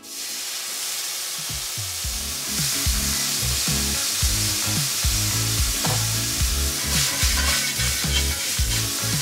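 Brandy, sweet vermouth and Madeira poured into a hot cast-iron skillet of shallots and herbs in duck fat, sizzling and hissing loudly. The sizzle grows brighter a couple of seconds in and turns rougher near the end as the alcohol catches fire in a flambé.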